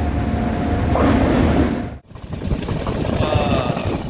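Train running noise: a steady rumble with wind, heard from a moving passenger train. It breaks off for a moment about two seconds in and then goes on again.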